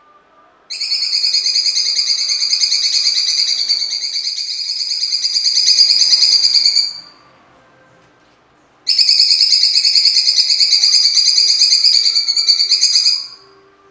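Cucak cungkok (blue-winged leafbird) singing its harsh, full 'shooting' song: a rapid rattling run of fast-repeated high notes in two long bursts, about six and four and a half seconds long, with a short pause between.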